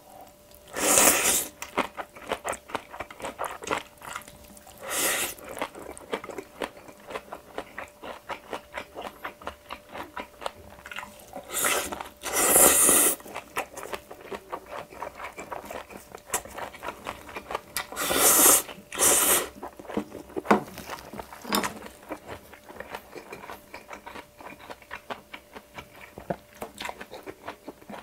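Close-miked eating of a mouthful of bibimbap: wet chewing and lip smacking, heard as rapid mouth clicks. Several louder, longer noisy bursts come about a second in, around five seconds, around twelve to thirteen seconds and twice near eighteen to nineteen seconds.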